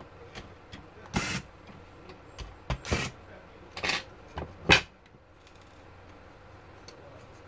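Short clattering knocks and scrapes of a laptop CPU fan and a screwdriver being handled on a workbench, about four in all. The last, about five seconds in, is the loudest.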